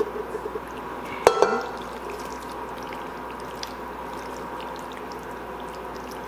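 A spatula scraping thick sauce out of a pot into a baking dish, with a sharp clank of the pot about a second in, then soft stirring and spreading of sauced pasta over a steady background hum.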